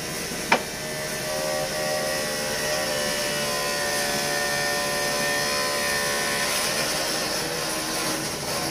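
Dump truck's electric cab-tilt pump motor running steadily with a whine as it slowly raises the cab. A single click about half a second in.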